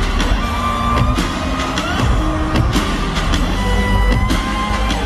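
Loud live concert music from a festival stage sound system, heard from within the crowd: a heavy bass with repeated drum hits under sustained melodic notes.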